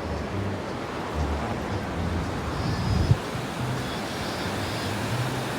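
Ocean surf washing steadily on the beach, with the low bass notes of distant music underneath and a short thump about three seconds in.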